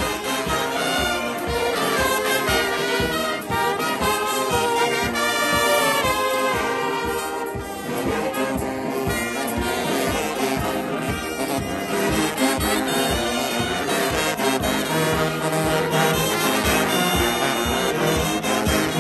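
Large brass band of sousaphones, trombones, trumpets and saxophones playing a tune together, with a steady beat running under it.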